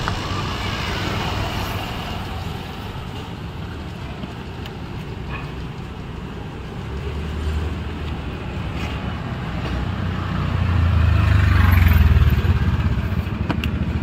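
Road traffic rumbling, swelling as a vehicle passes about ten seconds in. A few sharp clicks come just before the end.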